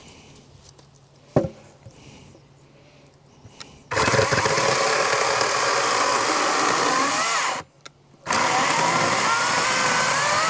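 Cordless Wild Badger 16-inch battery chainsaw cutting wood in two bursts, one of about three and a half seconds and one of about two and a half seconds, with a short pause between them. Its pitch rises toward the end of each burst. A single sharp knock comes about a second and a half in.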